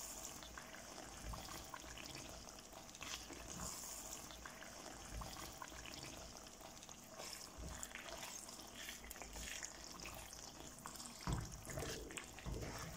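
Wooden spatula stirring a thick, sticky dates pickle in a pan as it cooks down nearly to readiness: faint wet stirring and scraping, with a couple of louder knocks near the end.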